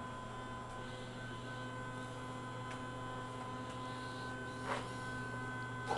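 Harbor Freight 9x20 lathe, converted to CNC with stepper motors, running: a steady electrical hum made of several fixed tones, with one light click a little under three seconds in.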